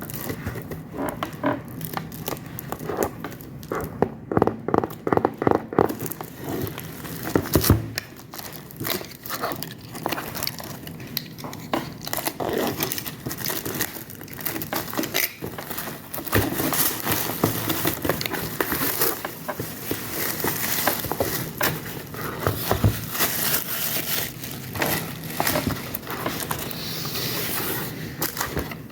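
Packaging being handled and opened by hand: plastic crinkling, tearing and scraping, with many irregular clicks and rustles.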